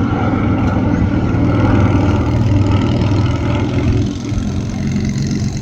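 Loud, steady engine drone that eases off about four seconds in.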